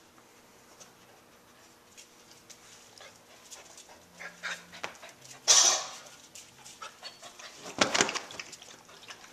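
Puppies moving about on a fabric couch: scattered soft scuffs and clicks, a loud, short hissing burst about halfway through, and a scrambling rustle near the end as a puppy climbs up onto the cushions.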